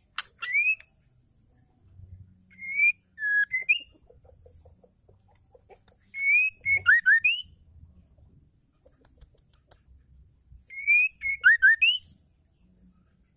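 White-rumped shama (murai batu) singing: four short phrases of clear whistled notes, several rising in pitch, each run together with quick high twittering, coming every few seconds with short pauses between.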